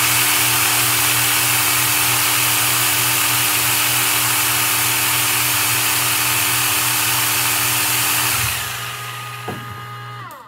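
Electric motors of a commercial meat grinder and corded power saws running together, loud and steady. The saws stop about eight seconds in, and the grinder's motor winds down, falling in pitch, just before the end.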